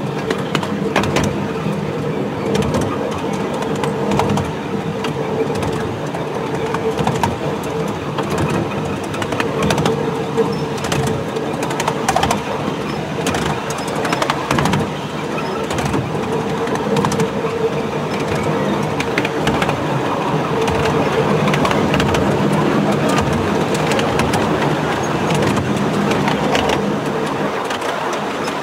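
7.25-inch gauge miniature railway train running along its track, heard from a passenger truck: a steady rumble and rattle of wheels with frequent clicks, over a constant hum.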